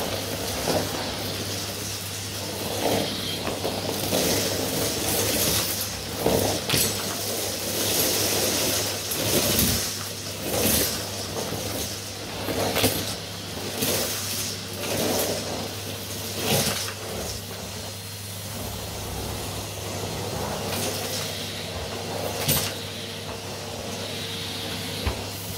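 Henry Xtra cylinder vacuum cleaner running steadily, its floor head pushed back and forth over a shaggy rug to suck up confetti, sequins and dust. The sound swells with each stroke, every second or two.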